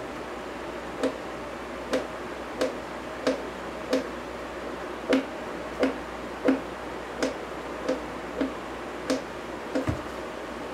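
Sharp clicks repeating at a fairly even pace, about three every two seconds, over a steady hiss.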